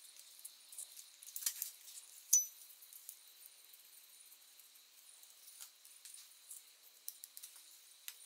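Light metallic clicks and clinks of hand tools and small parts as a carburettor on a Ford flathead V8 intake manifold is worked on, with one sharp ringing clink about two seconds in.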